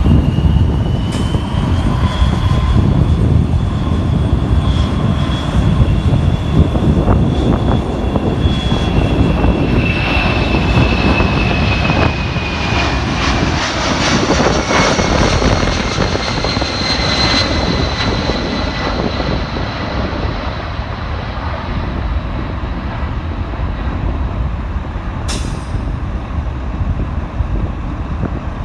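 Boeing C-17 Globemaster III's four turbofan jet engines at takeoff power: a loud, heavy rumble with a high fan whine that falls in pitch about halfway through, then slowly fades.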